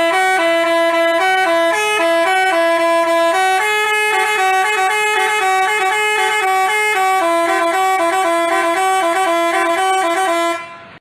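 Basuri telolet multi-tone bus horn playing a quick tune of stepped notes. It sounds continuously and cuts off near the end.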